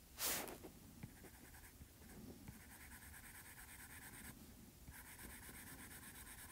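Stylus nib scratching faintly on an iPad's glass screen as short hatching strokes are drawn, with one louder, quicker stroke about a quarter second in.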